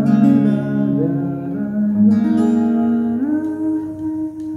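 Steel-string acoustic guitar with a capo playing chords: a chord struck at the start and another about two seconds in, with notes ringing on over each other and one note sliding up in pitch about three seconds in.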